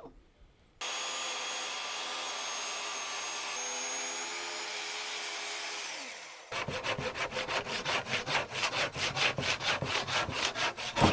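A Festool track saw runs through a solid walnut slab, its motor winding down about six seconds in. A handsaw then cuts through the rest of the slab with quick, even back-and-forth strokes.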